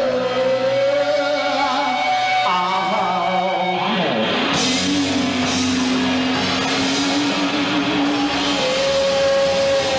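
Live rock band playing electric guitars, bass and drums with a singer, held notes ringing out; about four seconds in the pitch slides down and the drums and cymbals come in harder.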